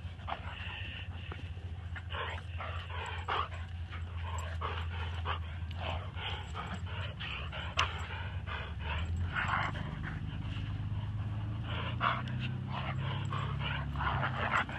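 A borzoi and a small dog play-fighting, with a dense, irregular run of short dog vocalizations and panting throughout.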